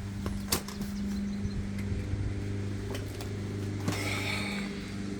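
Small clicks and a brief scratchy rustle of hands working a bicycle shift cable, over a steady low background hum.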